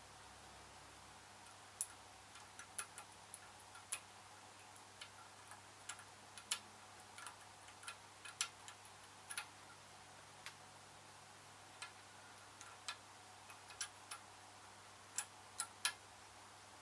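Faint, sharp clicks and taps at irregular intervals, some louder than others: small hand tools and a key blank being handled and set down while a key is cut by hand.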